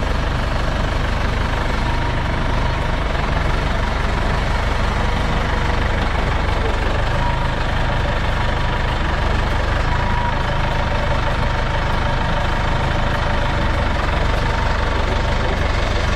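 Large farm diesel engine running steadily, with no change in speed, and a faint steady whine above it.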